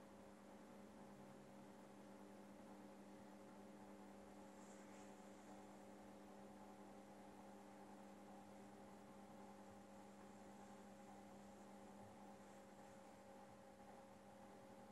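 Near silence with a faint, steady electrical hum of several fixed tones, and a faint tick about five seconds in.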